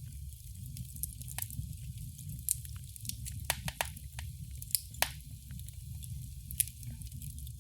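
Wood fire crackling in a fireplace: irregular sharp pops and snaps over a steady low rumble of the flames. A quick cluster of pops comes about three and a half seconds in, and a louder snap about five seconds in.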